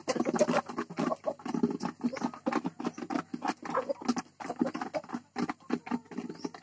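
A flock of hybrid laying hens pecking feed from a hanging plastic feeder pan: rapid, irregular tapping of many beaks at once.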